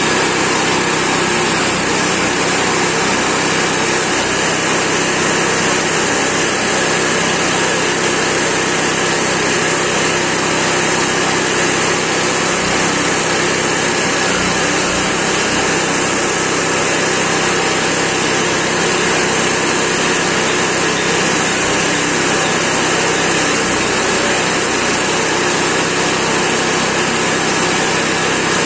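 Chipper shredder's small petrol engine running steadily at constant speed, driving the cutters as leafy tea branches are fed into the hopper and shredded.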